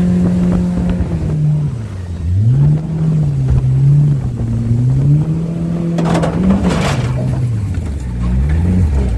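40 Mercury outboard jet running under way. Its pitch falls and climbs again several times as the throttle is eased off and reopened. A brief loud rush of noise comes about six to seven seconds in.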